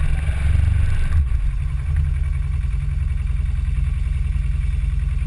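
Off-road side-by-side's engine running close to the camera, a steady low rumble that settles to an even idle about a second in.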